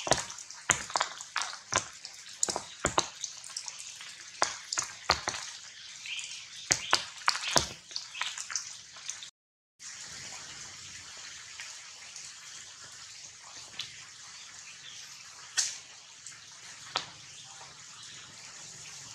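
Rain falling on forest leaves: many sharp, close drops pattering over a steady hiss. After a brief dropout about halfway, the hiss of rain carries on steadily with only a few loud single drops.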